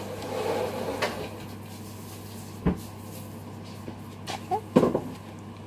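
Handling noises as homemade slime is played with in the hands: a few scattered sharp clicks and pops, with a dull knock about two and a half seconds in and the loudest click near the end, over a steady low hum.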